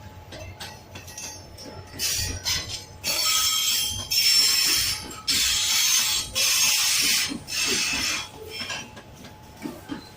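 Train going by, with a run of loud, high-pitched screeching blasts about a second long each, from about two seconds in until near eight seconds, over a low rumble.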